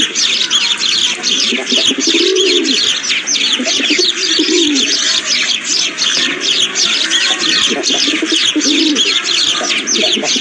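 Morning chorus of many small songbirds chirping densely and continuously, over a dove cooing low, one phrase about every two seconds.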